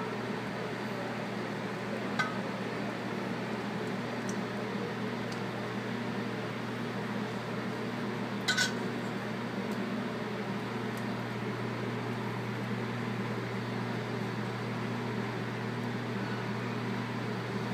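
Steady machine hum in a kitchen. Over it, a metal spoon clinks against a sauce pot twice: a light tap about two seconds in and a louder double clink around eight and a half seconds.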